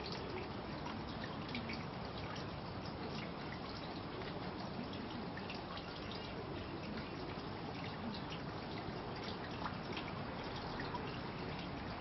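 Steady trickling water with many faint scattered drips.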